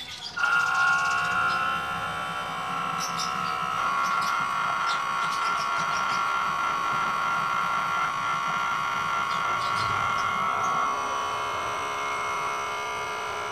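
Small electric motor of a homemade suction pump, switched on about half a second in and running with a steady high whine. It is sucking engine-flush liquid and loosened dirt out of the cylinders through a tube in the spark plug holes.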